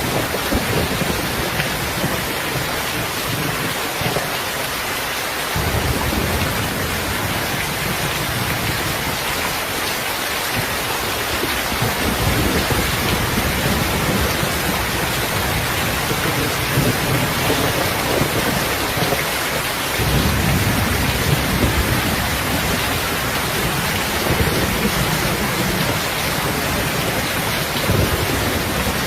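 Steady rain ambience, a dense even hiss of rain falling on surfaces. Deep rolling rumbles swell and fade several times underneath it.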